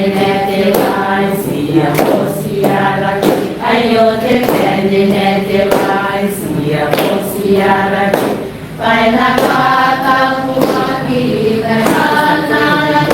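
A choir singing a hymn in several voices, with sharp strikes keeping a regular beat.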